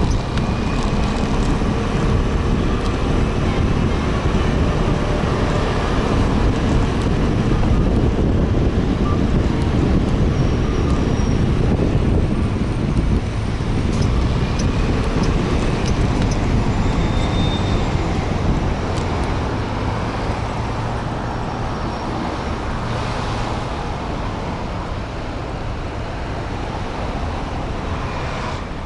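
Riding a Suzuki Address 125 scooter through city traffic: steady wind rush over the camera microphone with the scooter's small single-cylinder engine and surrounding cars and buses, growing a little quieter over the last several seconds as it slows behind a car.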